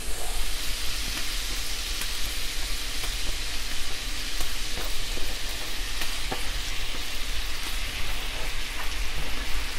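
Raw chicken breast pieces sizzling steadily as they go into hot sesame oil with ginger and garlic in a skillet, with a few light knocks as they are pushed off a wooden cutting board.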